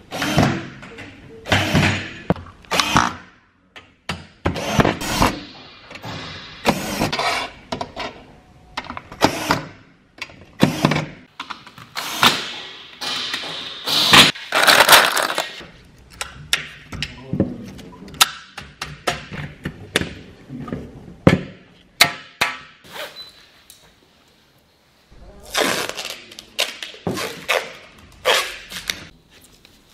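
Cordless drill driving screws into black aluminium screen-frame profiles in short runs, with a longer run about halfway through. Knocks and clatter of the metal profiles being handled on the workbench come between the runs.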